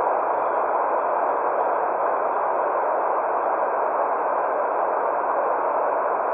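White noise played for a baby's sleep: a constant, even rushing hiss. It sits in the middle range with the highs cut off, so it sounds muffled rather than bright.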